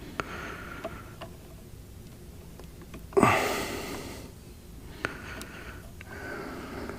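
Scattered small clicks and handling noises from hands reconnecting wiring plugs on a boat's remote control. About three seconds in comes one loud rushing burst that fades over about a second.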